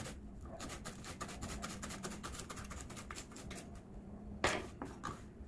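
Kitchen knife finely chopping coriander leaves on a wooden cutting board: quick, repeated taps of the blade on the board, with one louder knock about four and a half seconds in.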